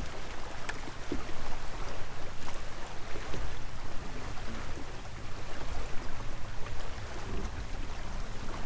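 Steady wind rumbling on the microphone and water lapping at a boat's hull, with a few faint ticks scattered through.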